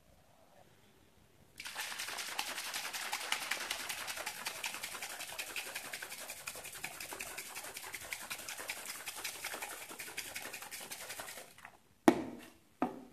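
A red plastic protein shaker bottle shaken hard for about ten seconds, mixing whey protein powder into water, a dense sloshing rattle of fast, even strokes. It stops near the end and is followed by two sharp knocks.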